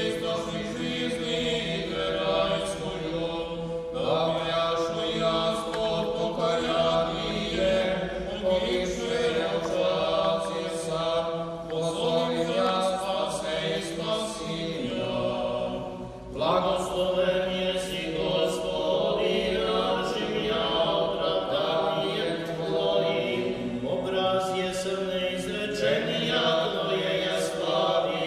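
Serbian Orthodox memorial-service (parastos) chant, sung unaccompanied by several voices in held, continuous lines, with a short break a little past halfway.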